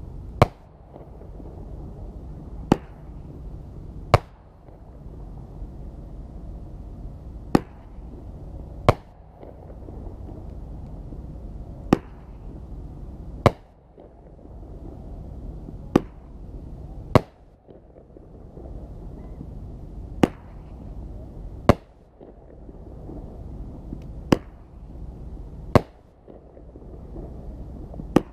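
Patriot 1 500-gram consumer fireworks cake by World Class Fireworks firing its aerial shots: sharp bangs, about fourteen of them, coming in pairs about a second and a half apart with a new pair every three seconds or so.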